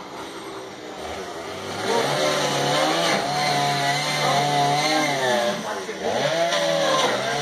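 Chainsaw revving up about a second in and cutting into a hot tub, its pitch rising and falling as it bites. The revs dip briefly near six seconds and then climb again.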